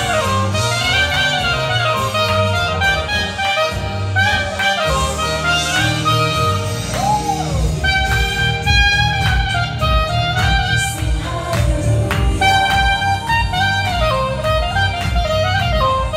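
Saxophone playing a jazz melody of held notes, runs and sliding bends over a backing track with a bass line and beat.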